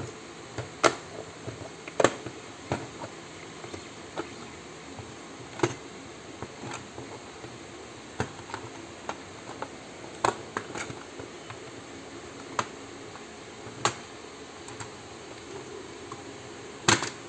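Hard plastic shell of a Nerf Stryfe blaster clicking and knocking as it is handled and pried apart: irregular sharp clicks a second or more apart. The loudest come about one and two seconds in, and a double snap comes near the end.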